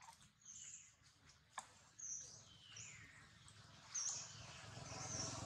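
Faint bird chirps: short, very high chirps every second or so, with one longer falling call around the middle and a single click.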